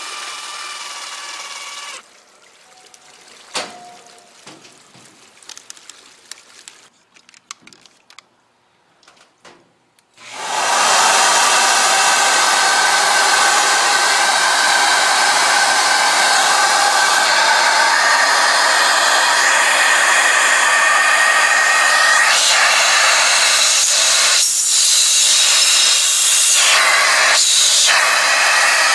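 A steady machine hum stops about two seconds in, followed by a few faint clicks and knocks. About ten seconds in, a loud, steady hiss of water spraying down onto the flooded rug starts and keeps going.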